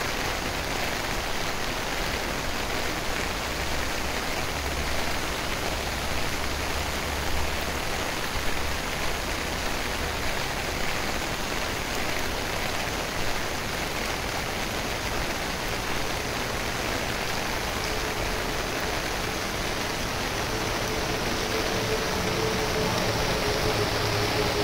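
Heavy rain falling steadily on paving, grass and trees: a dense, even hiss. A faint steady hum comes in about three-quarters of the way through.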